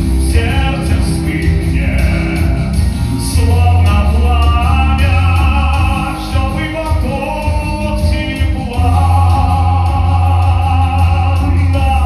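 Man singing into a handheld microphone in long held notes over instrumental music with a heavy, steady bass.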